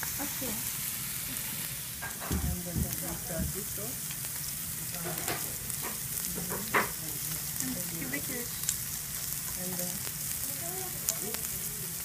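Slices of meat sizzling on a hot tabletop barbecue plate, a steady frying hiss, with a few sharp clicks along the way.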